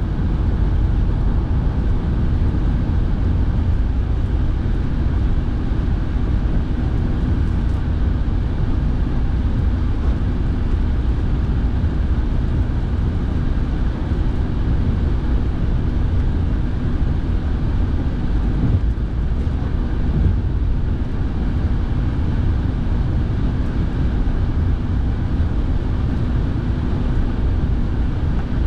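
Steady road noise and engine hum of a car heard from inside the cabin, with the heater fan running.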